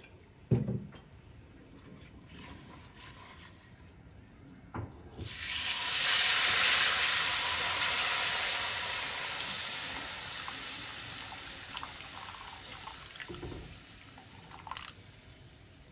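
About 500 ml of water poured into a pan of hot oil with fried whole spices and chili powder: a sudden loud sizzling hiss starts about five seconds in and slowly dies away as the water takes the heat. A single knock of the pan or jug sounds about half a second in.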